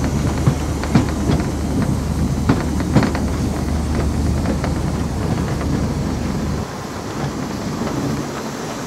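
Narrow-gauge steam train heard from a moving carriage: a steady deep rumble of the wheels on the track, with several sharp clicks in the first few seconds. The deep rumble drops away about two-thirds through.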